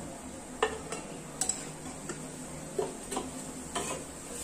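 Steel slotted spoon tapping and clinking lightly against the kadhai and plate as fried gulab jamun are scooped out of the oil, a few scattered light clicks over the faint hiss of gently bubbling oil.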